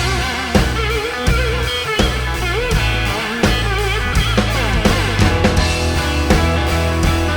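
Live blues-rock band playing an instrumental break: a lead line that bends and wavers in pitch over a steady bass and drum groove.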